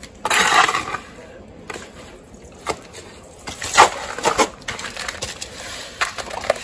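Steel trowel scraping and scooping wet cement-plaster (stucco) mud out of a plastic bucket and onto a hawk, with sharp clicks of metal on the hawk. It comes as separate scrapes: one short scrape just after the start, a couple of clicks, louder scraping in the middle, and more scraping near the end as mud goes onto the wall.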